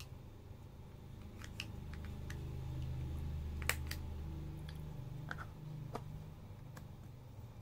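Scattered small sharp clicks and taps of plastic being handled, the sharpest a little before halfway; the later ones come as a plastic lid is pressed down onto a small container. Under them a low rumble swells and fades.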